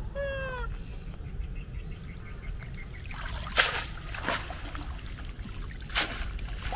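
A wet fishing net being dragged up out of a pond, with several brief splashes of water as it comes out. A short falling call sounds right at the start.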